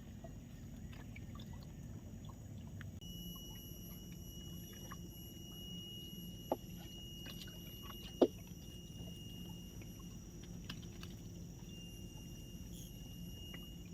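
Faint riverside ambience: a steady low rumble with a thin, steady high tone, broken by two sharp clicks about six and eight seconds in.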